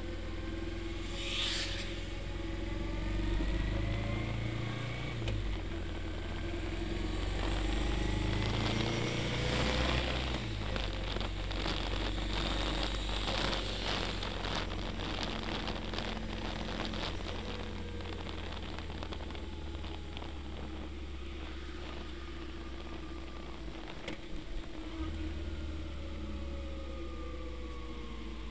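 Motorway riding noise among a large group of motorcycles: a steady low engine and road drone, with engine notes gliding up and down as the bikes change speed. A stretch of rapid crackling runs through the middle.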